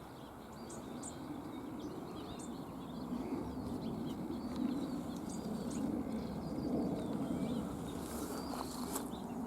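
Scattered short, high bird chirps and twitters over a steady low rumble of outdoor background noise.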